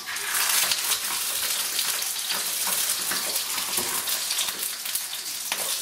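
Coiled sausage sizzling and crackling in a hot frying pan. The sizzle starts as the sausage goes into the pan, is loudest for about the first second, then settles to a steady sizzle with scattered pops.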